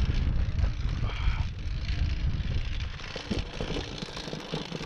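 Wind on the microphone and the rumble of a Nanrobot Lightning electric scooter riding over rough grass, heavy for about three seconds and then easing, followed by a run of sharp rattling clicks from the scooter, which the rider puts down to a loosened headlight rim.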